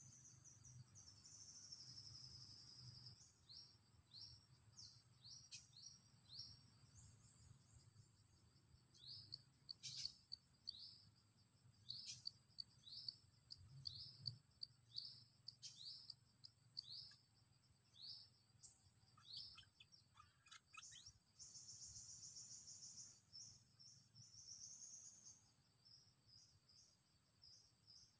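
A small songbird calling faintly, with short high chirps that fall in pitch, about one a second, and quicker trilled phrases near the start and again about two-thirds of the way through. A steady high-pitched whine runs underneath.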